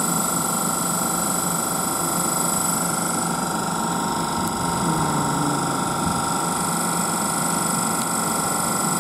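Class 387 Electrostar electric multiple unit standing at the platform, its onboard equipment running with a steady hum and several high, steady whining tones.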